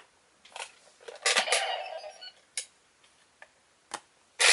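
Handling of plastic toys and a trading card: a scattering of separate clicks and taps, with a short stretch of denser handling noise about a second in.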